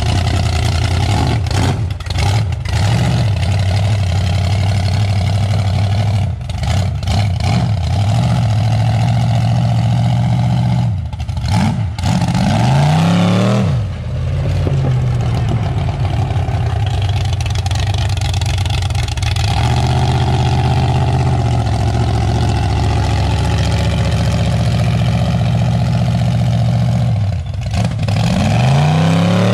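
383 stroker small-block Chevy V8 in a lifted mud truck, pulling a heavy gooseneck trailer at low speed. The engine runs loud and steady, with the revs climbing and dropping briefly about twelve seconds in and again near the end.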